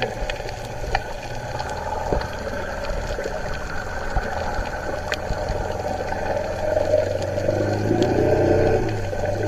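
A boat engine droning, heard through the water by an underwater camera, with scattered sharp clicks. Near the end the engine note rises and grows louder.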